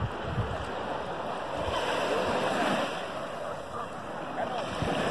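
Small waves washing up on a sandy beach, swelling about two seconds in, with a few thumps of wind on the microphone near the start.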